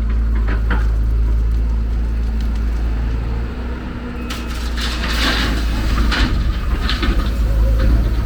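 Heavy diesel machinery running with a steady low rumble, and from about four seconds in irregular scraping and knocking of rock and earth being dug or dropped.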